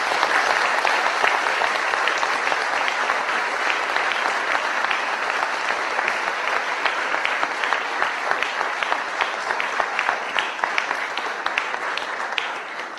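Audience applauding at the end of a poetry recitation: a steady round of many hands clapping that thins into separate claps and fades away near the end.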